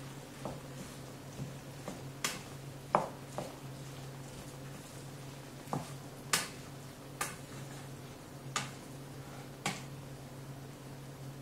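A spoon stirring cooked wheat pilaf with chopped vegetables in a frying pan, knocking against the pan about eleven times at irregular intervals, over a low steady hum.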